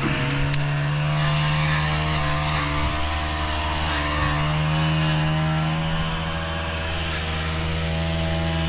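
A small gas engine running steadily at an even speed, a tool such as a string trimmer or chainsaw at work.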